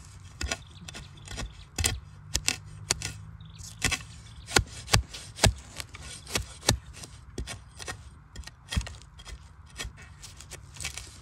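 A hand digging tool chopping and scraping into dry soil around a bamboo shoot to expose it: irregular sharp strikes with scraping between them, the loudest a few in a row about four to five and a half seconds in.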